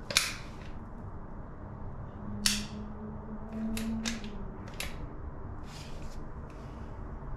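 Caulking gun clicking as its trigger and plunger rod are worked. Two sharp, loud clicks come a couple of seconds apart, then a quick run of lighter clicks.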